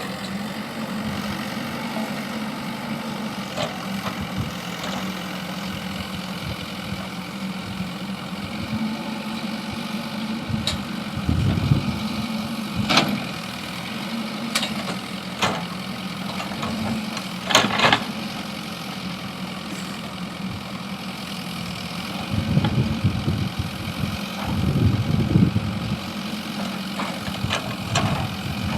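JCB backhoe loader's diesel engine running steadily, surging heavier under load about eleven seconds in and again for a few seconds past the twenty-second mark. A few sharp knocks ring out around the middle.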